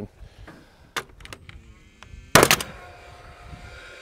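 Paslode XP cordless combustion framing nailer firing once, with a sharp crack about two and a half seconds in, followed by the steady whir of its fan. There is a light click about a second in.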